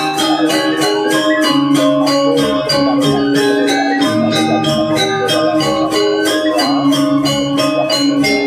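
Balinese gamelan (gong ensemble) playing Rejang dance music: ringing bronze metallophone tones over a fast, even run of strikes.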